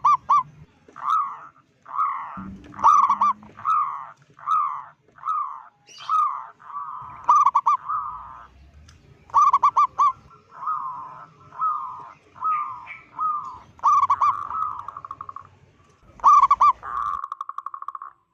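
Zebra dove (perkutut) cooing over and over: each phrase opens with a tight cluster of quick stuttering notes and runs into a rolling, purred coo, with short breaks between phrases.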